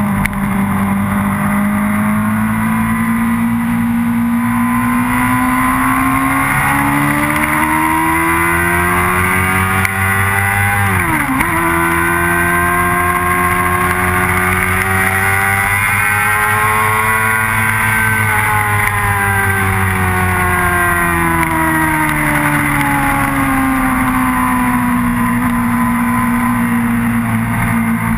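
Motorcycle engine pulling at speed: the revs climb steadily, dip sharply and recover about eleven seconds in, climb again, then slowly fall away over the last ten seconds. A steady rush of wind runs underneath.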